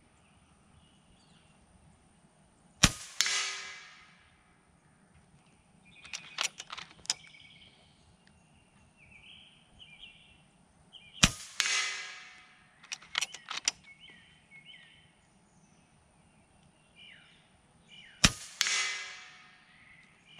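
FX Impact .30-calibre PCP air rifle fired three times, about eight seconds apart: each shot is a sharp crack with a brief ringing tail. A few seconds after each shot comes a quick run of metallic clicks as the side lever is cycled to chamber the next pellet.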